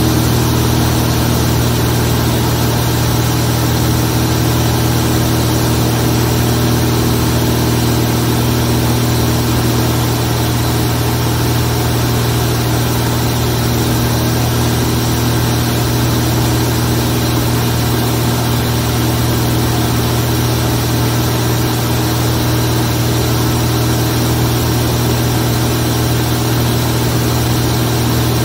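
Zlín Z 42 light aircraft's six-cylinder Walter M137 piston engine and propeller running steadily in flight, a constant low drone with no change in power.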